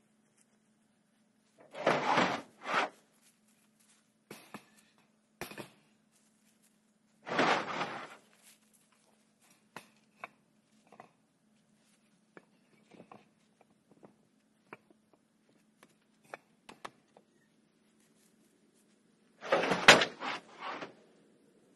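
Concrete cinder blocks being set down and shifted on top of other blocks: gritty scrapes and knocks, twice early on, once a few seconds later and a loud cluster near the end, with small clicks in between.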